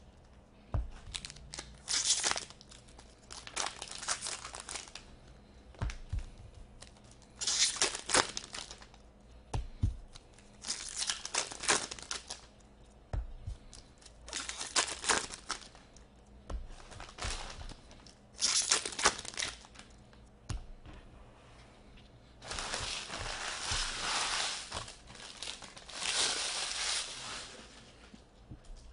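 Foil wrappers of Upper Deck SP Authentic hockey card packs being torn open and crinkled in short bursts every second or two, with a longer stretch of crinkling near the end as the cards are pulled out and handled.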